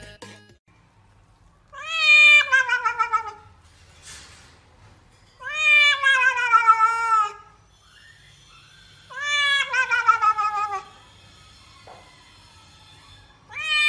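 Domestic cat yowling while being bathed: four long drawn-out meows, each about two seconds and sliding down in pitch, with pauses between them, the last starting near the end.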